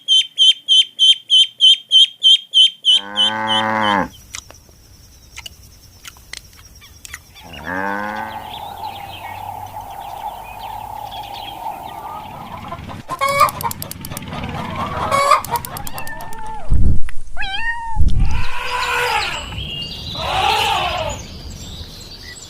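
A run of bird calls: a fast, even series of high chirps for the first three seconds, then chickens, with long rooster crows and clucking.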